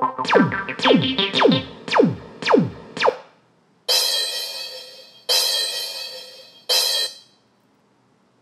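Divoom Ditoo Bluetooth speaker playing DJ-mixer pad effects tapped in its phone app. First come six quick zaps that fall steeply in pitch, about half a second apart. After a short pause come three noisy hits with ringing tones, about a second and a half apart, each fading away.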